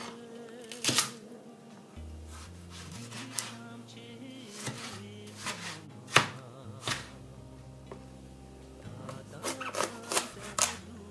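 Cleaver chopping a tomato on a cutting board: single sharp chops a second or two apart, the loudest about six seconds in, then a quick run of chops near the end. Background music with a slow, changing bass line plays throughout.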